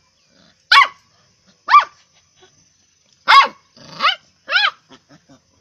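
Young puppy barking: five short, high-pitched barks, each rising and falling in pitch, with a few faint little yips near the end.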